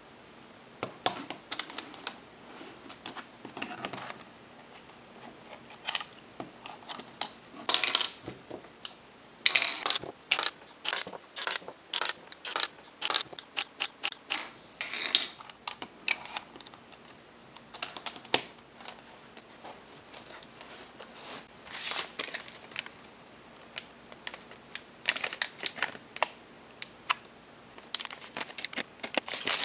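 Plastic puzzle pieces clicking and knocking as they are handled and set down on a wooden table. There is a fast run of clicks, about four or five a second, from about ten to fourteen seconds in, and a denser cluster of clicks and crinkling packaging near the end.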